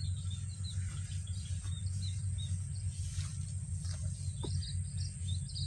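Insects and birds: a continuous high-pitched insect trill, with birds chirping in short repeated notes that come thicker near the end. Under it runs a steady low rumble.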